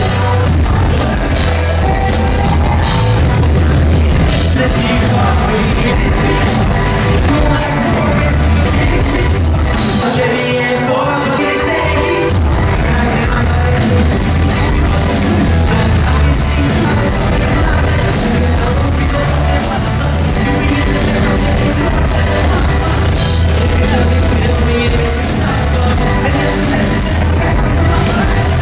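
Live rock band playing loud through a venue PA, with electric guitar, bass, a heavy pulsing beat and a singer on microphone, heard from the crowd. The bass and beat drop out briefly about ten seconds in, then come back.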